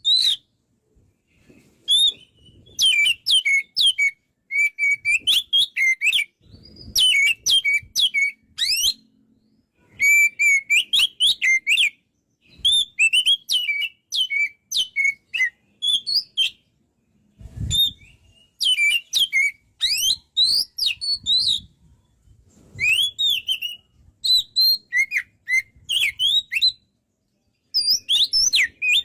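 Oriental magpie-robin (kacer) singing in full voice: loud, varied whistles and rapid chirping notes in phrases of a second or two with short pauses between.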